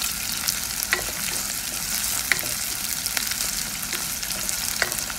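Sliced shallots and garlic sizzling in hot coconut oil in an earthen clay pot, stirred with a wooden spatula that knocks lightly against the pot a few times.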